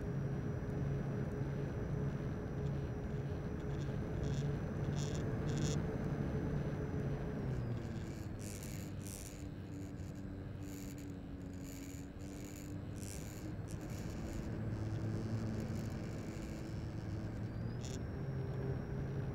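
Onboard sound of an RC model airplane's electric motor droning steadily in flight, with wind rushing past the airframe. The motor note drops a little about a third of the way in as the throttle comes back, and rises again near the end. A cluster of short high hisses comes in the middle.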